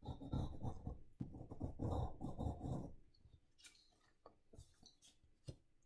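Pencil scratching on notebook paper as it traces around a small cardboard template, in short strokes for about three seconds. After that come a few light taps and clicks as the cardboard is lifted and moved.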